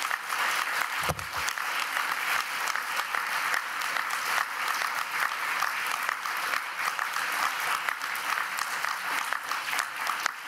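Audience applauding steadily, a dense patter of many hands clapping, with a brief low bump about a second in.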